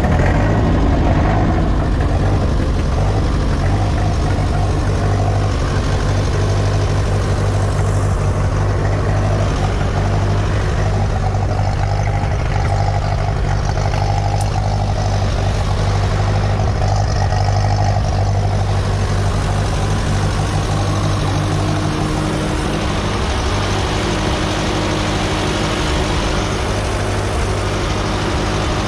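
A vehicle engine idling steadily close by, with a faint change in its note about two-thirds of the way through.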